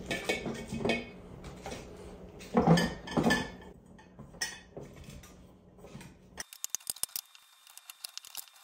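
Cut cabbage wedges and vegetable pieces being packed by hand into large glass jars: crunchy rustling with knocks and clinks against the glass, loudest about three seconds in. Near the end only faint, sharp clicks remain.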